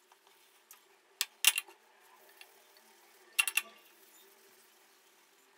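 Hands handling a wet, gritty sugar, coffee and oil scrub, rubbing it onto the skin. A few sharp, sticky clicks stand out: two about a second and a half in, and a quick cluster of three around three and a half seconds.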